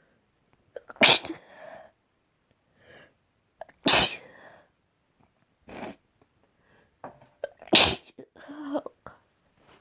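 A person sneezing four times, about two seconds apart. The third sneeze is shorter and softer than the others.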